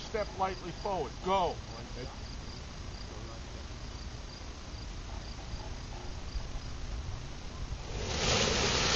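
Crickets chirping in the grass in a faint, steady, evenly repeating pulse, with a few short swooping calls in the first second and a half. Near the end a loud rush of wind noise sets in.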